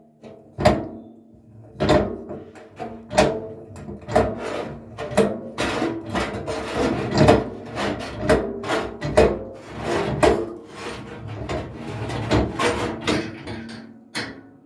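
Repeated hammer blows on metal, roughly one a second, each followed by a short ringing, while a Zanussi automatic washing machine is taken apart to replace its drum bearing.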